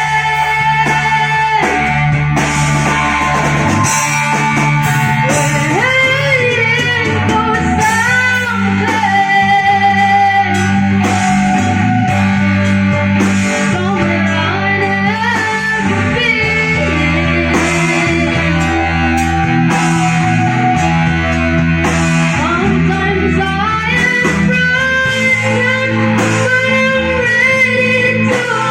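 Live band playing a song at a sound check: guitar and a melody line over steady low bass notes that change every second or two.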